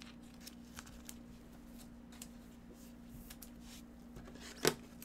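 Soft rustles and light clicks of gloved hands handling a trading card and a clear plastic card sleeve, with one louder short rustle near the end, over a steady low hum.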